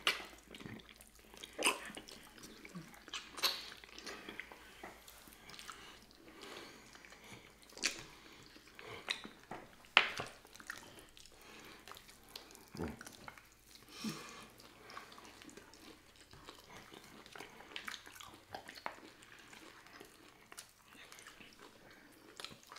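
Close-miked wet chewing and lip smacking of sticky pig feet, in irregular clicks and smacks, a few of them louder.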